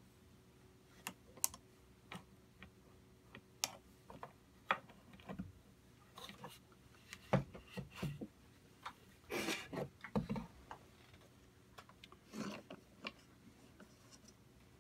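Small metal engine parts clicking and knocking against each other and the wooden mounting board as they are fitted by hand, in scattered irregular taps, with a short scraping sound about two-thirds of the way in and another near the end.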